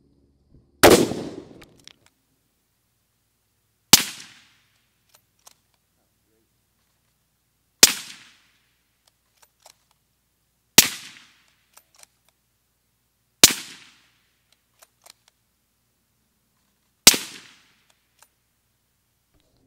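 Six suppressed .308 Winchester shots from a bolt-action rifle fitted with a Rugged Suppressors Surge 762 in its short K configuration. Each is a sharp report with a brief tail, three to four seconds apart, with faint clicks in between.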